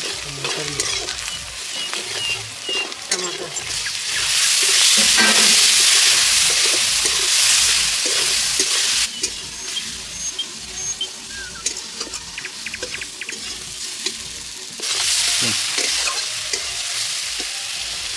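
Sliced pointed gourd (parwal) and onions frying in oil with spices in a kadai, sizzling while a metal spatula stirs and scrapes the pan. The sizzle swells louder twice, about four seconds in and again near the end.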